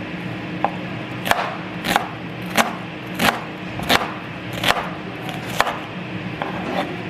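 Kitchen knife chopping on a cutting board: about seven strokes in an even rhythm, one every two-thirds of a second.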